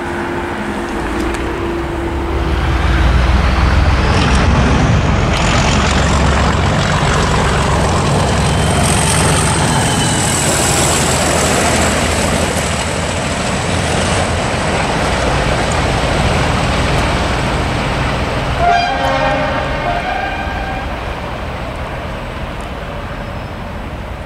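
Class 37 diesel locomotive, its English Electric V12 running, passes close hauling two unpowered Class 20 locomotives. The engine's low rumble and the rolling wheel and rail noise are loudest in the first half, with a thin high whine above them, and fade as the train draws away. A brief horn toot sounds about three-quarters of the way through.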